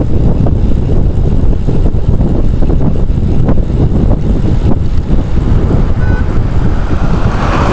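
Heavy wind buffeting the microphone of a bicycle rider coasting downhill, a continuous low rumble. Near the end a passing motor vehicle's noise grows louder.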